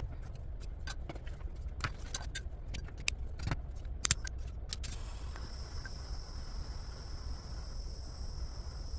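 Sharp clicks and clinks of small parts and tools being handled. Then, about five seconds in, a handheld gas torch lights and hisses steadily.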